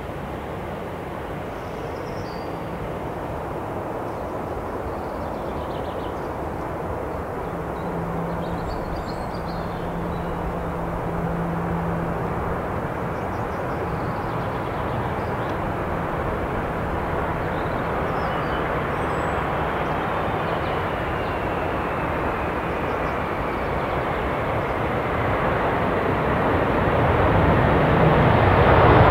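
Airbus A380-861's four Engine Alliance GP7200 turbofans on final approach: a steady jet rumble that grows louder as the airliner closes on the runway. In the second half a faint engine whine glides down in pitch.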